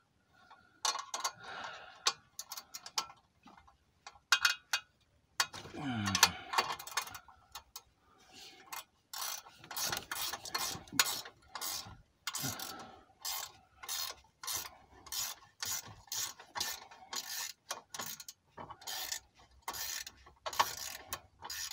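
Ratchet wrench clicking as it works loose a spring-loaded 10 mm bolt on an exhaust flange at the catalytic converter: scattered clicks at first, then steady strokes about two a second from the middle on.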